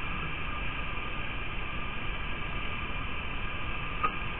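Steady hiss of rain on a low-quality outdoor webcam microphone, with faint steady whines underneath and a single sharp click near the end.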